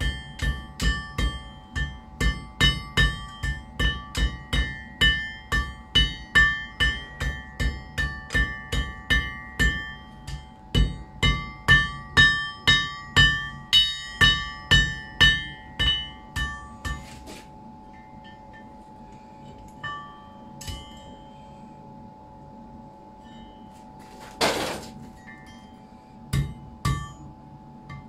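Blacksmith's hand hammer forging hot metal on an anvil: steady ringing blows, about two to three a second, for some sixteen seconds with one short break. Then come a few scattered strikes and a brief hiss about two-thirds of the way through, over a faint steady hum.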